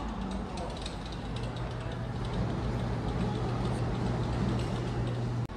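Steady background noise of a large hall, with a low hum that sets in about a second in and cuts off abruptly near the end.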